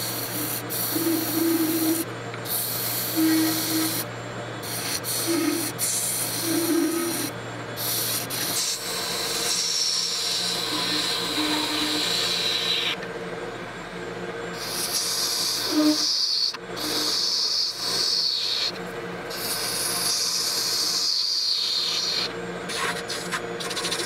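Epoxy resin blank being turned on a wood lathe with a hand-held turning tool: a hissing, scraping cut over the lathe's steady motor hum, stopping briefly a few times as the tool is lifted off and set back on.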